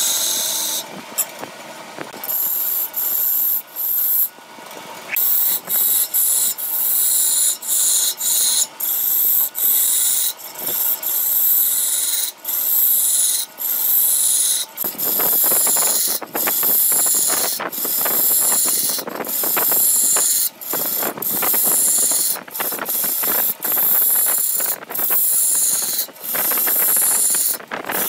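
Hand-held turning tool cutting into a large ebony root spinning on a wood lathe: a loud scraping hiss in repeated passes about a second long, broken by brief gaps where the tool lifts off. From about halfway the cuts become heavier and fuller.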